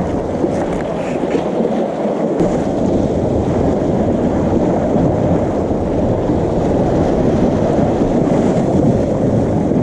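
Seawater washing and churning against the breakwater rocks: a steady rush of noise with no separate strokes.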